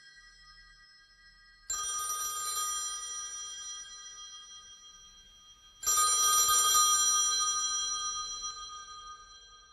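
Telephone in a phone booth ringing twice, each ring a cluster of high steady tones that dies away slowly.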